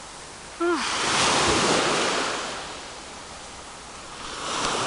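Sea waves breaking on the shore: one wave surges in just under a second in and washes back out, and another builds near the end.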